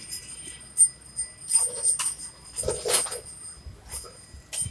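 Small metal washing-machine gearbox parts clinking and rattling as they are handled, with a few separate knocks about one and a half and three seconds in.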